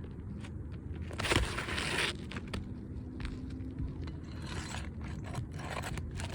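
Asphalt roofing shingle being worked loose and pulled out, with scraping and tearing in several bursts, the loudest about a second in, and a few sharp clicks between them.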